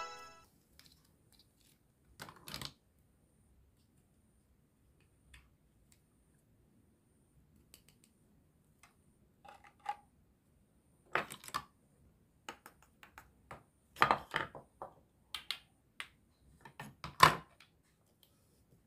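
Hard plastic toy kitchen pieces clicking and knocking as they are handled and set down: scattered short taps with quiet gaps between them, coming more often and louder in the second half.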